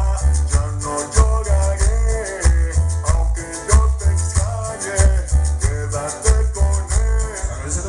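Cumbia-style dance music played loud over a sound system: a heavy bass beat about twice a second, a shaker keeping time, and melodic instrument lines over it.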